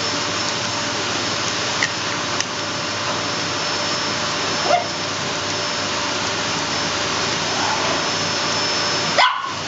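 A steady, loud rushing noise, like a running motor or fan, with thin steady tones above it and a couple of brief small sounds about two and five seconds in.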